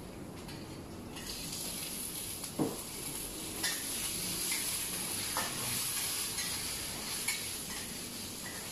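Food hitting hot oil in a pan and sizzling. The steady sizzle starts about a second in and is stirred through, with a few sharp clinks of a utensil against the pan.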